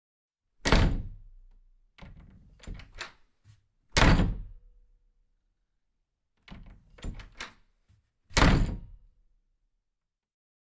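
Three heavy thuds about four seconds apart, each trailing off briefly, with clusters of lighter knocks between them in a repeating pattern.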